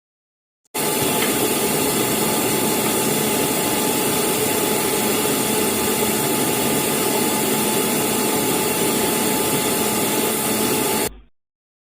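A steady, even machine noise, a loud hiss with a low hum under it, starting abruptly about a second in and cutting off sharply near the end.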